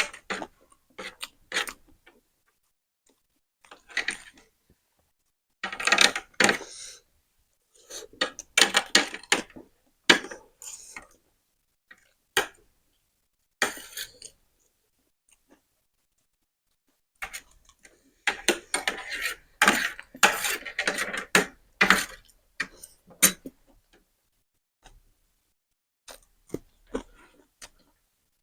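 Close-up eating sounds from a spicy-noodle mukbang: sharp clicks of utensils against bowls and plates, with longer noisy stretches of eating about 6 s in, from about 8 to 11 s, and from about 17 to 23 s.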